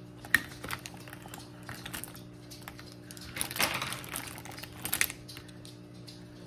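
Small makeup containers and tools being handled: a sharp click shortly after the start, a burst of rattling and rustling around the middle, and a few more clicks about five seconds in, over a faint steady hum.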